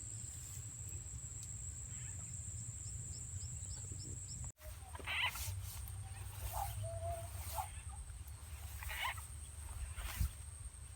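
Frogs calling in short, scattered calls over a steady high insect drone and a low rumble, with a brief cut-out about four and a half seconds in.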